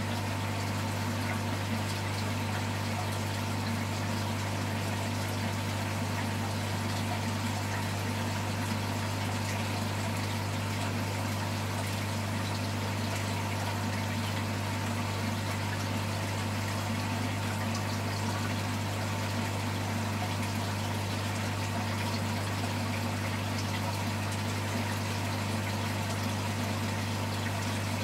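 Aquarium pump humming steadily, with the wash of moving water over it.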